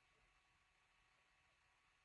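Near silence: faint room tone and recording hiss.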